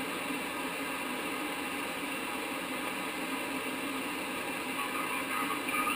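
Steady static and interference hiss from the speaker of a Hallicrafters S-108 tube shortwave receiver as it is tuned slowly across the 40-meter band. Faint wavering tones come through near the end.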